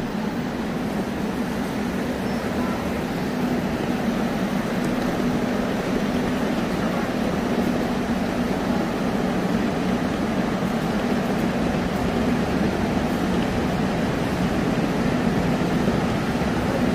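A steady low mechanical drone with a constant hum, growing slightly louder.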